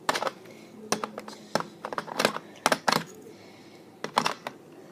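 Irregular sharp clicks and knocks of plastic toy parts and packaging being handled and pushed together, about eight in all.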